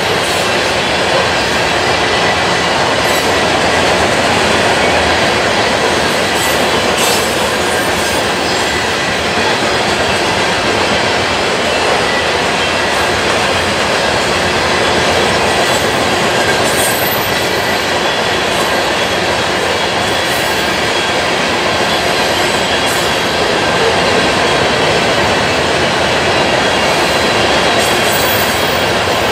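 Freight train of covered hopper cars rolling past: a steady rumble of steel wheels on rail. A faint thin high squeal from the wheels runs under it, with a few sharp clicks.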